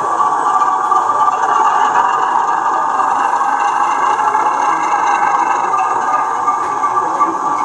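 O gauge model BR diesel shunter running slowly with its sound-fitted engine at a steady beat as it moves a short rake of wagons.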